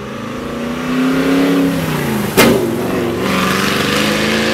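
Supercharged 6.2-litre V8 Camaro with free-flowing stainless exhaust accelerating past. The engine note climbs, then drops as the car goes by, with a sharp crack at about the halfway point, and climbs again as it pulls away.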